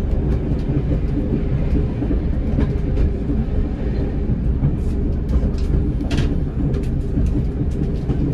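Class 108 diesel multiple unit under way, heard from the driving cab: a steady diesel engine drone with scattered clicks and knocks from the wheels running over the track. A louder knock comes about six seconds in.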